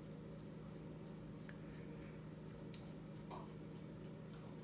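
Safety razor scraping through lathered stubble on the upper lip and cheek in quick short strokes, a faint rasp about three or four times a second, over a steady low hum.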